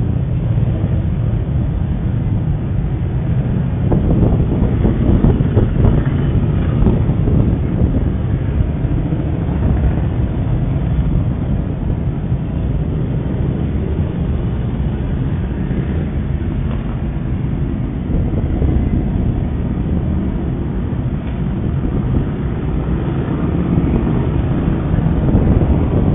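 A procession of motorcycles riding past one after another, their engines making a steady low rumble that swells a few seconds in and again near the end. It is heard through a security camera's microphone, which sounds muffled and cuts off the higher tones.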